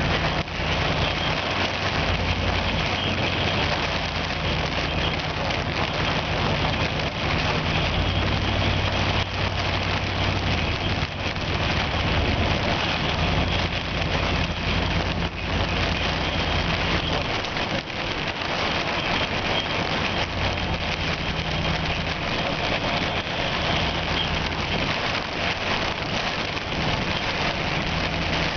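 Heavy wind-driven rain hitting a car, with a steady low rumble from the strong wind and the vehicle's engine.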